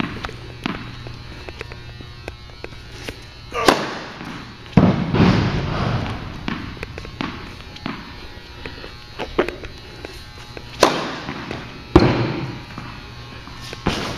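A tennis ball bounced on a hard court several times before serving, then struck hard with a racket on serves, the louder hits echoing in the indoor hall.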